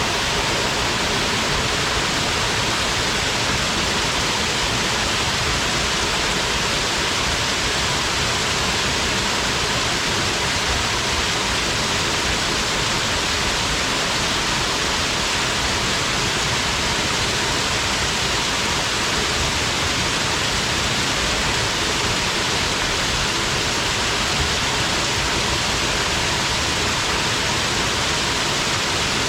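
Waterfall: water falling and splashing into a pool, a steady, even rush with no change.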